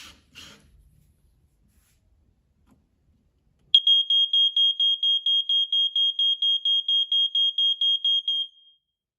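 First Alert SA67D smoke alarm's piezo horn sounding on test: one high-pitched tone pulsing rapidly, about five beeps a second. It starts about four seconds in and stops after about five seconds.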